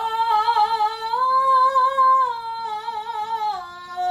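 A woman singing a sustained high vowel in full chest voice, with a slight waver. The pitch steps up about a second in, is held near the top of her range, and drops lower near the end.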